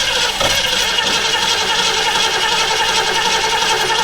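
1967 Ford Mustang's starter cranking the engine in an even, pulsing rhythm without it catching: a no-start condition, with the engine short of fuel despite a newly fitted fuel pump.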